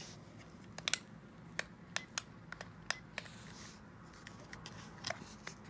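Scattered small sharp clicks and taps from handling a digital alarm clock and its cord: about eight in the first three seconds, then one more near the end.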